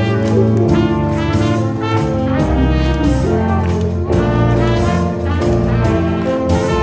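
Big-band jazz orchestra playing, with the brass section of trumpets and trombones carrying sustained chords over a steady bass.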